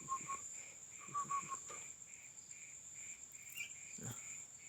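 Young yellow-vented bulbul giving quick runs of short chirps, about six a second, once at the start and again about a second in, over a steady chorus of crickets. A soft thump comes near the end.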